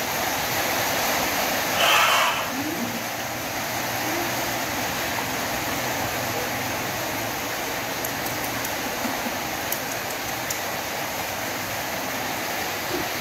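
Steady rushing hiss, like running water or a fan, with a brief rustle about two seconds in and a few faint ticks later on.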